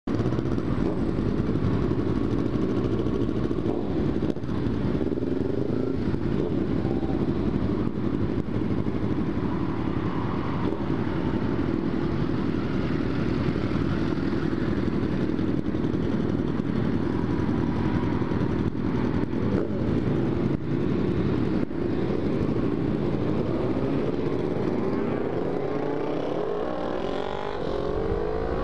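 Kawasaki Ninja 300's parallel-twin engine running under way, heard from the rider's position with a steady wind rumble on the microphone. Near the end the engine pitch rises steadily as the bike accelerates.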